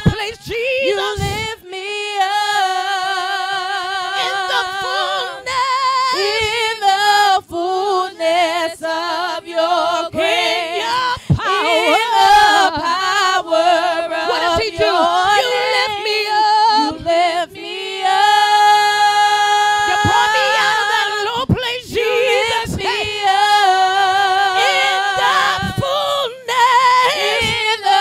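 A woman singing a gospel praise song unaccompanied into a microphone, holding long notes with a wavering vibrato between them.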